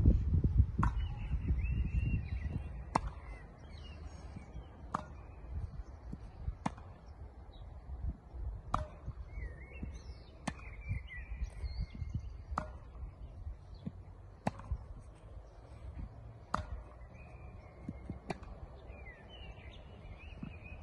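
Tennis rally: rackets striking the ball, one sharp pock about every two seconds as it is hit back and forth, with birds chirping in between.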